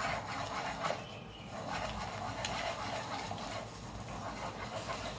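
Wooden rolling pin stirring hot water in a pan, a soft scraping with a few light knocks against the pan.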